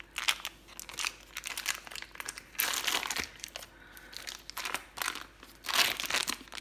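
Foil wrapper crinkling as a block of cream cheese is unwrapped, in irregular rustling bursts, loudest about two and a half seconds in and again near the end.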